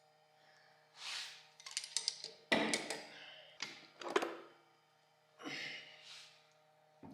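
Metal clanks, clicks and scrapes of steel transmission parts being handled as the first clutch drum is worked out of a TH400 automatic transmission case. A sharp clank about two and a half seconds in and a ringing one about four seconds in stand out.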